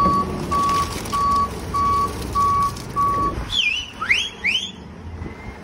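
Forklift reversing alarm beeping six times at an even pace, about one and a half beeps a second, over the low rumble of the forklift's engine. After the beeps stop, a few quick rising whistle-like chirps follow.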